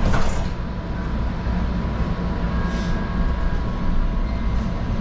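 Steady low rumble heard from inside a METRO light-rail car, with a faint steady whine over it and a couple of brief hisses, one just after the start and one near the middle.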